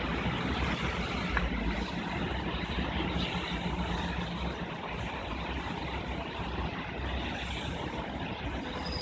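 Street traffic in a jam: cars, trucks and buses running slowly and idling, a steady rumble under an even hiss.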